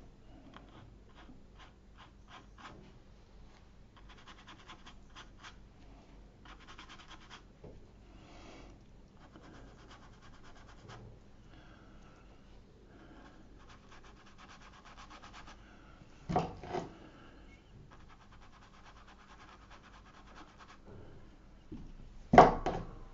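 Stiff flat brush scrubbing on damp watercolour paper in short bursts of strokes, lifting paint out with clean water. Two louder brief knocks, one about two-thirds of the way through and one near the end.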